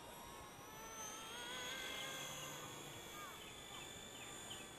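Microheli S300C micro RC helicopter, with a three-blade head and a 2627 motor, flying at a distance: a faint motor and rotor whine whose pitch wavers up and down as the throttle and blade load change.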